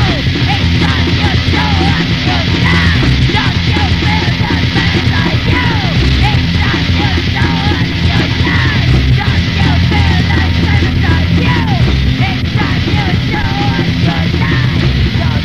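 Crust punk music played from a demo cassette: distorted electric guitars, bass and drums, with shouted vocals.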